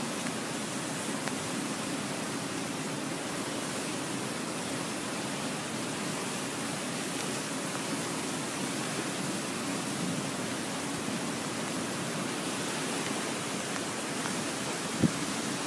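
Flash-flood water rushing steadily down a channel. One sharp knock comes near the end.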